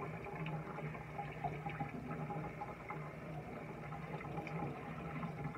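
Kitchen tap running, with water splashing onto a chicken of the woods mushroom being rinsed in the sink: a steady hiss.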